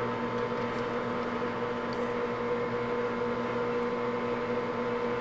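Grizzly G4003 gearhead lathe running with a steady hum and whine during a thread-cutting pass, with a few faint ticks.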